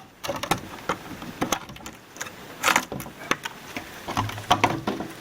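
Irregular small clicks, taps and rattles of wires and plastic parts being handled inside an oxygen concentrator as a wire connector is worked loose, with a louder run of clicks near the end.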